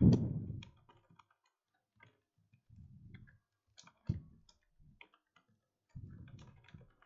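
Irregular clicking of computer keyboard keys being typed, with a louder thump at the very start.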